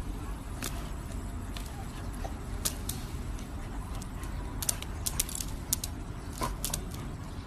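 Scattered light clicks and taps of a dog pawing at a fidget spinner on a hard tile floor, over a steady low rumble.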